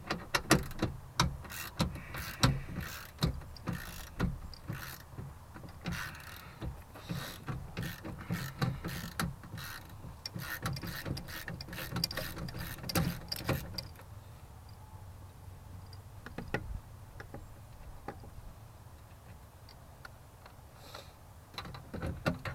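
Ratchet wrench clicking in quick runs as the door's window regulator mounting bolts are backed out. After about fourteen seconds it thins to a few scattered clicks and clinks, and a burst of clicks comes again near the end.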